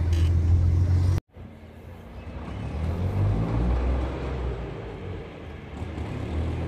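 Street traffic: road vehicles running past with a low rumble. The sound cuts out abruptly about a second in, then returns as passing traffic that swells and eases.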